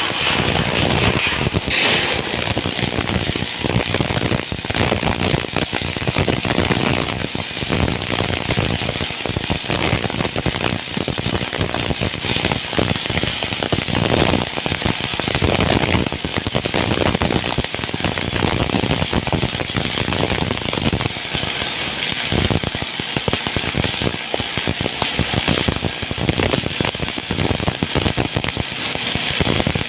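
Electric arc welding crackling and sputtering steadily as a bead is run in the flat position.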